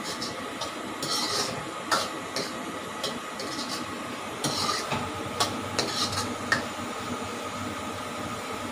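Metal ladle stirring diced potatoes in a metal wok, with irregular clinks and taps against the pan and a few longer scrapes.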